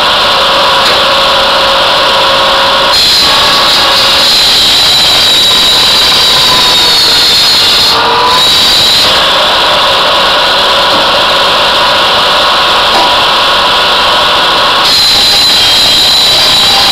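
Posch sawbench running loud and steady while log rounds are cross-cut on its circular blade, its whine changing pitch a few times as the blade works through the wood, with a brief dip about eight seconds in.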